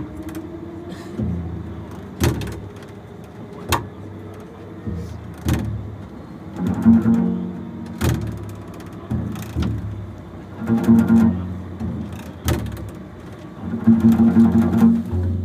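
Solo double bass playing low notes cut through by sharp percussive knocks. Three louder passages, about halfway through, a little after that, and near the end, have quickly pulsing pitched notes.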